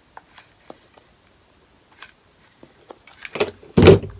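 Hands handling craft supplies on a tabletop: a few faint clicks and taps, then a burst of rustling and clattering that ends in a loud thump a little before four seconds in.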